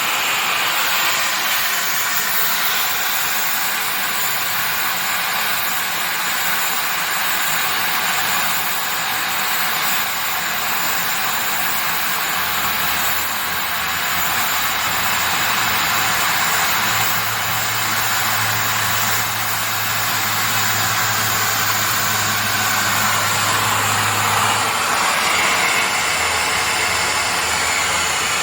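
Utensil sterilizing machine running: a steady rushing hiss. A low hum joins it a little under halfway through, is strongest for several seconds, then eases back near the end.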